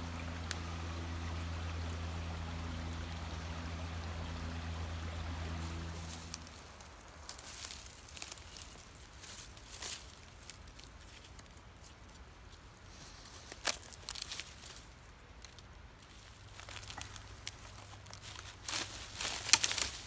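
Dry leaves and dead twigs crackling and snapping as hands handle and arrange them, in scattered short crunches with a louder burst just before the end. A steady low hum fades out about six seconds in.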